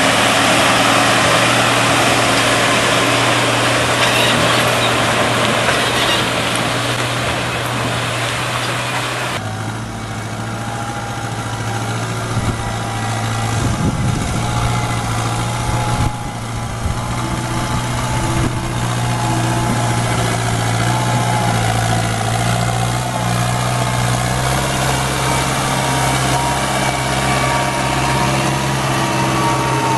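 Heavy diesel engines working under load: first a loaded logging truck pulling along soft muddy ground, then, after an abrupt change about nine seconds in, a wheeled tractor hauling a log-laden forestry trailer through deep mud, its engine note steady.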